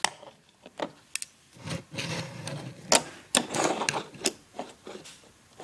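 Irregular clicks and knocks of a plastic rubber-band loom being handled and set down on a wooden table, with handling rustle in between.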